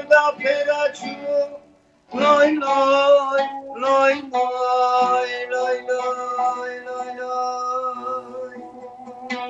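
Oud plucked, then a man singing a wordless line over it after a short break about two seconds in, settling into a long held note with the oud moving underneath until near the end.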